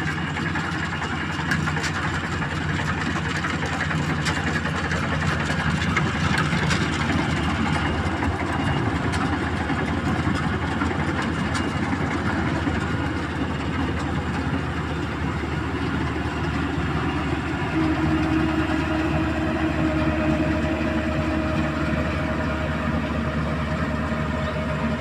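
Kubota DC 35 combine harvester running steadily, its diesel engine and machinery making a constant mechanical din. A steady higher whine joins in about two-thirds of the way through.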